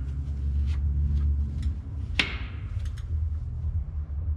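A single sharp metallic clink about two seconds in, with a brief ringing tail: a hand tool knocking against engine metal. A few lighter taps come before and after it, over a steady low hum.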